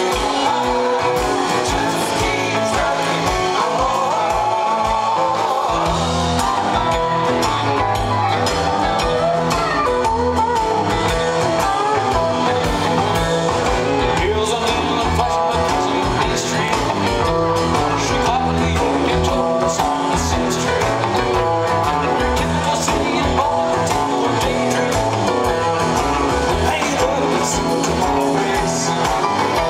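Live rock band playing through a concert sound system, heard from the audience: electric guitars, bass and drums with singing. The bass and drums fill out about six seconds in.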